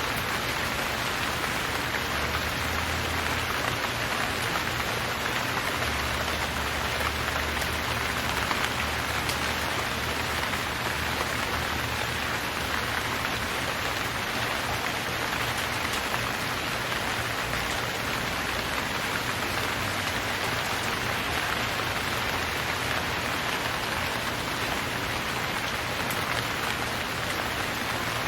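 Steady rain falling, an even hiss of many raindrops that stays constant throughout.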